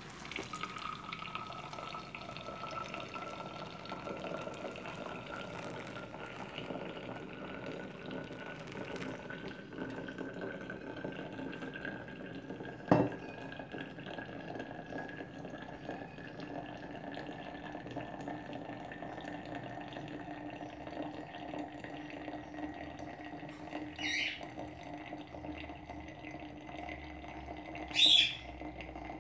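Hot water being poured over ground coffee in a paper filter and running through it: a steady liquid pour with a faint tone that rises slowly in pitch. A sharp knock about halfway through and two brief high-pitched bursts near the end.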